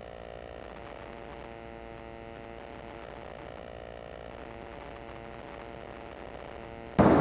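Rotax engine of a Zenith STOL CH 701 light aircraft running on final approach, heard faintly through the cockpit intercom feed as a steady hum with several even tones. Near the end a much louder rush of wind and engine noise breaks in suddenly.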